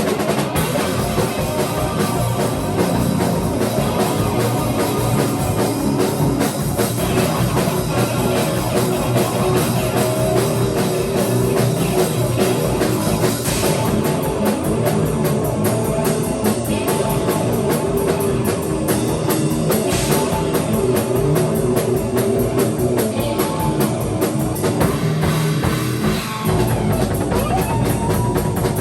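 Instrumental rock band improvising: a drum kit with a fast, driving kick-drum pattern under electric guitar.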